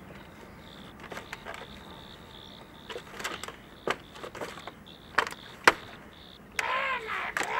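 Scattered knocks and scrapes of someone clambering over a clay-tile roof, over a faint steady high tone. Near the end a parrot lets out loud, harsh squawks.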